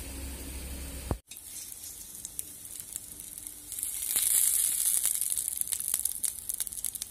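Besan-battered bread slice sizzling and crackling in a little oil on an iron tawa over low heat. The sizzle is louder for a couple of seconds about four seconds in, with many small crackles.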